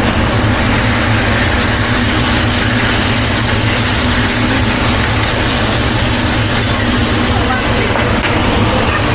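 Hibachi griddle sizzling steadily as chicken, shrimp, scallops and steak cook on the hot steel plate, over a steady low hum.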